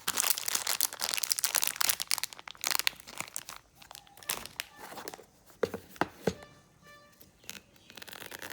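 Plastic packaging crinkling and tearing as it is handled, densest in the first three seconds, then thinning to scattered rustles and clicks.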